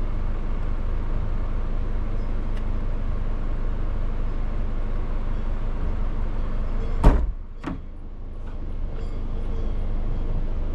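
Steady low rumble and hiss of a moving vehicle. About seven seconds in, two sharp knocks come less than a second apart, and then the rumble drops and slowly builds again.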